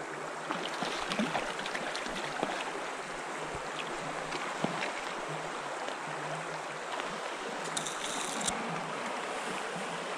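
Trout stream water running steadily over rocks, with a brief high hiss about eight seconds in.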